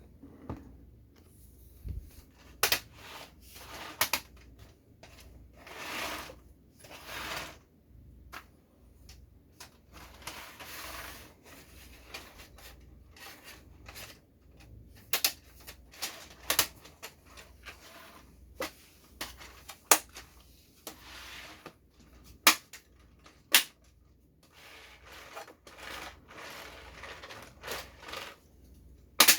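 Hands handling a plastic toy snow groomer model and its packaging: scattered sharp plastic clicks and knocks, several of them loud, between bursts of rustling.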